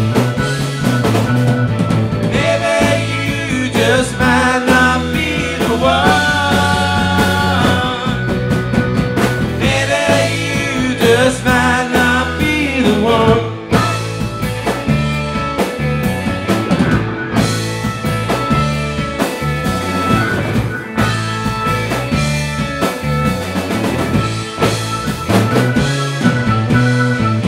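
Live rock band playing an instrumental passage: electric guitars and drum kit driving along, with held and bending notes in the lead part.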